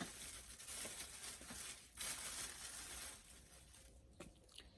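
Packaging crinkling and rustling as it is handled, fading about three seconds in, followed by a few light clicks.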